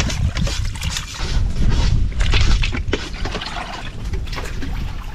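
Water pouring and sloshing in uneven splashes, over a constant low rumble.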